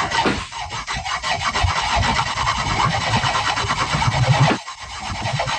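Hacksaw cutting through a tractor PTO shaft in repeated back-and-forth strokes, with a short break near the end. The blade is one the sawyer thinks is worn out.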